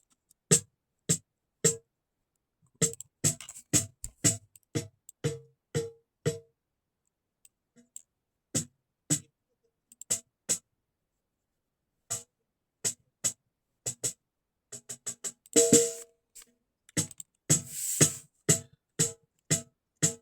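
Miked snare drum played in a sparse bossa-style rhythm of single sharp strikes, each with a short ringing overtone, the gaps between them cut to silence. Near the end a quicker run of hits comes with a brief hissy wash. A little drive has been added to the recorded signal.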